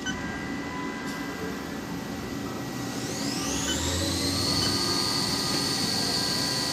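CNC milling machine spindle spinning up: a high whine rises about three seconds in and settles to a steady pitch over the machine's steady running hum.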